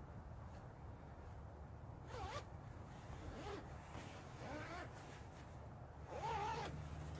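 Zipper on a Helikon-Tex Swagman Roll's nylon shell being zipped closed in four short pulls, the last the loudest.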